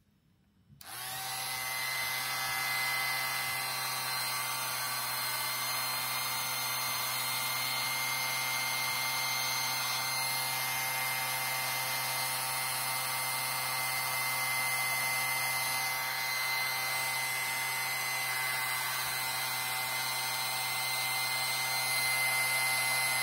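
Remington vacuum hair trimmer switching on about a second in, then running steadily as it cuts and sucks up hair: a small motor's whine with a low hum under an even hiss, a little louder near the end.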